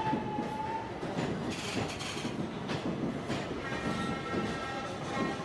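Amaravati Express passenger train running through a tunnel, its wheels clattering on the rail joints under a steady rumble. A thin high tone sounds for about the first second, and a held sound of several tones at once comes in for the last second and a half.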